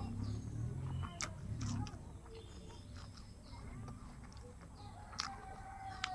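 Chickens clucking and small birds chirping in the background, with a few sharp clicks.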